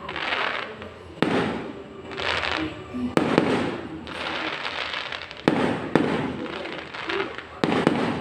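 Aerial fireworks bursting one after another, a sharp bang every second or so, each followed by a crackling, fading tail.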